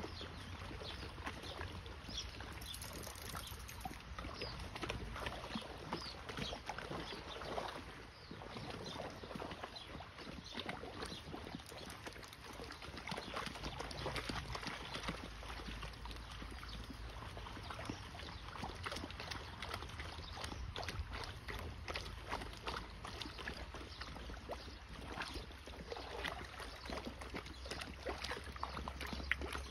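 Akbaş dogs wading through a shallow stream: water sloshing and splashing around their legs in many small, irregular splashes, over a low steady rumble.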